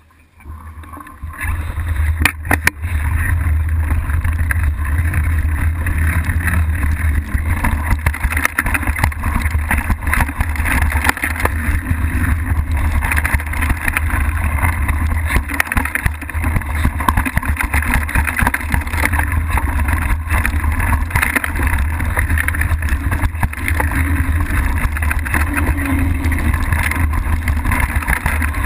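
Mountain bike rolling downhill on a rough dirt trail, heard from an action camera mounted low on the bike: heavy wind rumble on the microphone with tyre noise and the clatter and rattle of the bike over rocks and roots. It builds up over the first couple of seconds as the bike gets moving.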